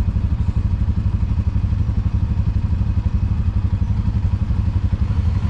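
Side-by-side UTV engine idling steadily, a low, evenly pulsing run.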